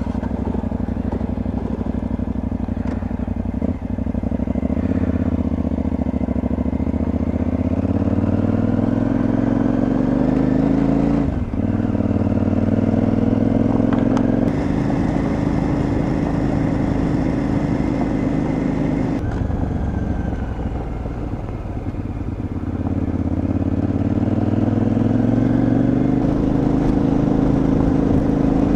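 KTM 950 Adventure's V-twin engine running under way, its pitch climbing as the throttle is held open, then dropping sharply about eleven seconds in and rising again near the end.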